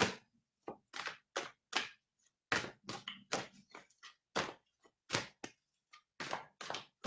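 A deck of large oracle cards being shuffled and handled by hand: a string of short, sharp card snaps and slaps, about two a second, irregularly spaced.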